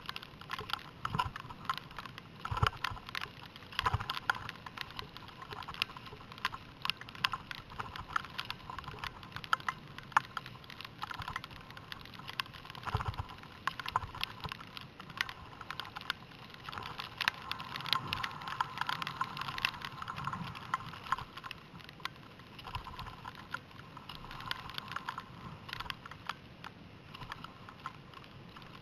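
Skiing heard through a helmet-mounted camera: a dense, irregular clicking and ticking over a faint hiss of skis on snow, a little louder a little past the middle.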